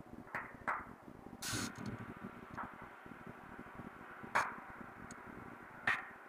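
A spoon clinking and scraping against a small bowl: a few sharp, separate clicks and one short scrape, as garlic is tipped from the bowl into the pot for sautéing.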